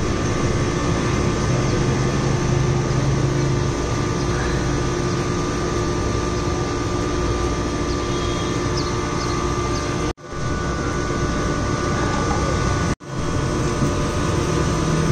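Steady mechanical hum: a constant noise bed with a few steady tones. It drops out abruptly twice, about ten and thirteen seconds in, and comes back each time.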